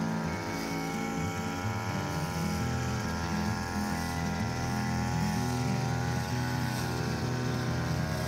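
Backpack brush cutter engine running while cutting grass, its pitch wavering gently up and down as the throttle shifts.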